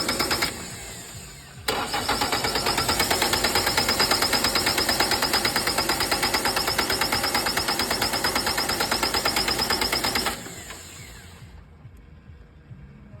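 Tractor engine being cranked by its starter, turning over with an even pulsing rhythm but not catching. A short burst of cranking ends about half a second in; after a pause of about a second it resumes for about nine seconds, then stops with the engine still not started.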